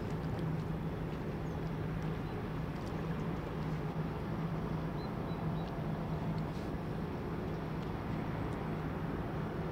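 Steady low drone of a passing cargo ship's engines, with an even hum at one pitch over a broad rumble. A couple of faint high chirps come in about halfway.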